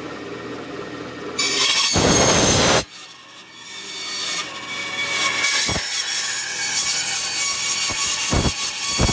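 Porter-Cable floor bandsaw with a carbide-tipped blade cutting through a thick 4x6 pressure-treated post, a steady rasping cut that grows louder as the blade bites deeper. About two seconds in there is a brief, very loud rushing noise, and near the end a few sharp knocks.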